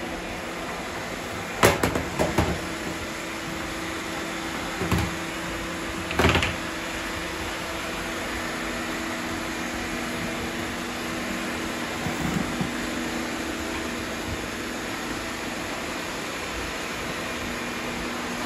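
Several robot vacuum cleaners running with a steady motor hum. A few sharp knocks and clatters come about two, five and six seconds in.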